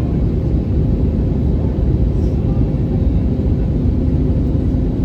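Steady cabin rumble of an Airbus A320neo's engines and airflow during descent, heard from inside the passenger cabin. A faint low steady hum joins it about three seconds in.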